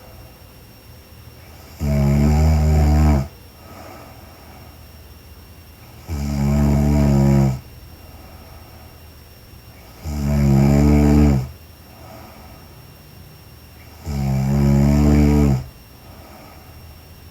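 A woman snoring in her sleep: four low-pitched snores, each about a second and a half long, coming evenly about every four seconds.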